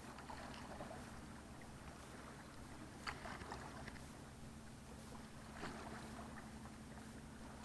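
Faint steady low mechanical hum, with a couple of brief rustling clicks about three and five and a half seconds in.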